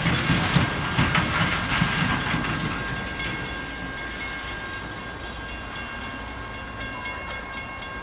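Freight train's wheels clicking over rail joints as it rolls away, the sound fading over the first few seconds. A few faint steady high tones carry on behind it.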